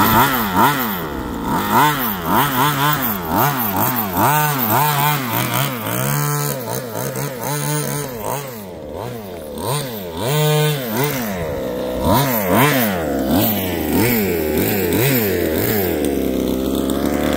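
Two-stroke gas engine of an Exceed Barca 1/5-scale 4x4 RC buggy revving up and down again and again as it is driven. It holds high revs twice for a second or so, then settles to a steadier idle near the end. The carburettor has been leaned out a little after running too rich.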